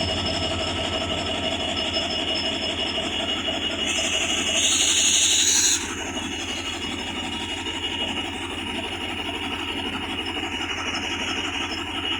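A WDG4 diesel locomotive's 16-cylinder two-stroke engine running with a steady rumble and low hum. About four seconds in, a louder hissing, higher-pitched sound rises over it for about two seconds and cuts off sharply.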